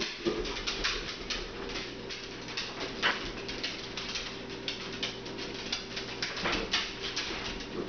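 Dogs playing and scuffling on a hard floor: their claws click and scrabble in quick, irregular taps. A faint steady hum runs underneath.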